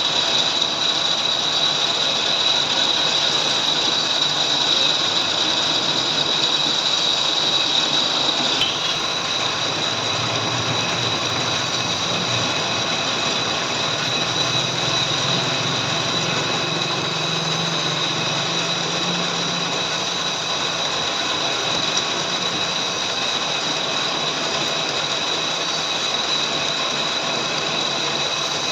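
Lathe running with a steady high whine over machining noise; the whine and overall level drop a little about nine seconds in.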